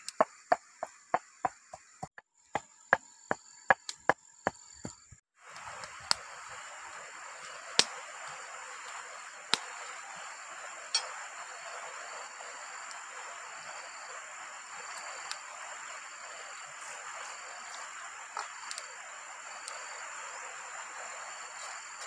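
Pestle pounding chilies and salt in a mortar, sharp strikes about three a second with a short pause near two seconds in. About five seconds in the strikes stop suddenly and a steady hiss takes over, with a few light knocks.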